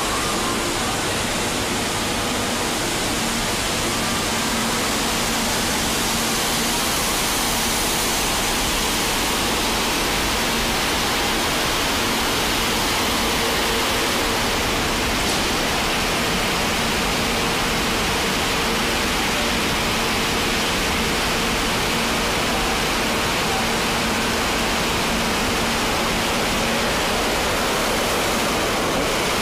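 Steady rushing of air from the fans and blowers of a Tamglass ProConvection glass tempering furnace, with a faint low hum underneath.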